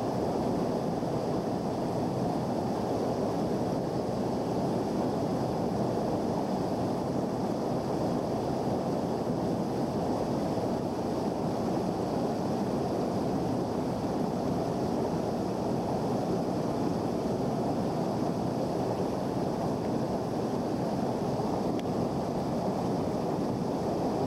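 Steady rush of a whitewater creek running over boulders, an even noise with no let-up.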